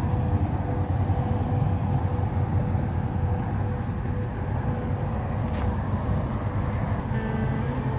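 Pontoon boat's outboard motor running steadily, a low rumble, with one short hiss about five and a half seconds in.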